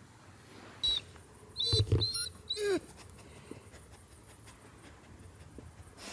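German shepherd making a few short vocal sounds in quick succession, grunts and whines, the last a whine that falls in pitch.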